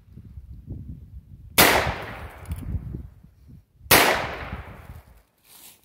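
.22 Magnum revolver with a 4-inch barrel firing two shots about two seconds apart, each a sharp crack that trails off in an echo.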